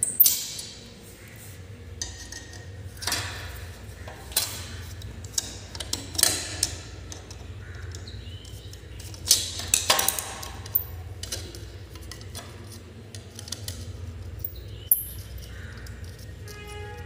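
Screwdriver and metal number plate clinking and scraping as the plate's mounting screws are worked loose by hand, in irregular sharp clicks, over a steady low hum.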